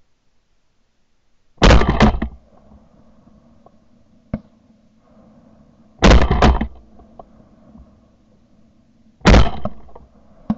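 Shotgun fire at geese passing overhead: three volleys about four and then three seconds apart, each two or three shots in quick succession.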